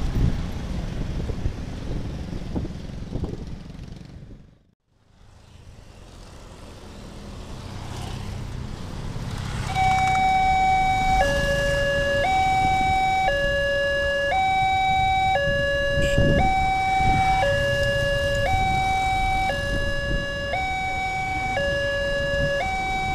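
Motorcycles and cars pass over a railway level crossing. About ten seconds in, the crossing's warning siren starts: a two-tone chime alternating between a higher and a lower note, each about a second long, signalling an approaching train as the barrier comes down.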